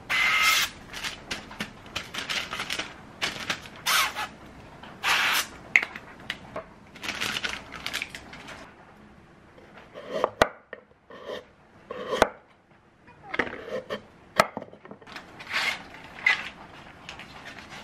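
Cooking-oil spray can hissing in short bursts over breaded cutlets. Later come a few sharp knocks and clatter of a knife and tray on a wooden cutting board.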